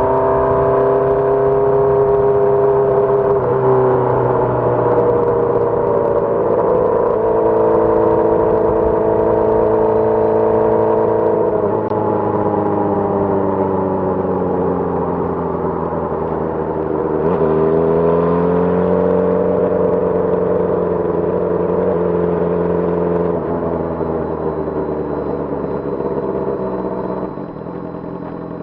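2006 Honda CBR600RR's inline-four engine running at mid revs, its pitch jumping and sliding several times as the revs change, then falling quieter near the end.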